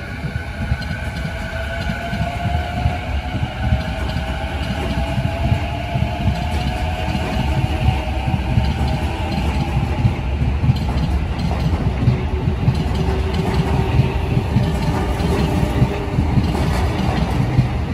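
Keiyo Line electric commuter train pulling out of the platform, its traction motors giving a whine that rises in pitch over the first several seconds as it gathers speed, over a steady low rumble from the wheels and running gear.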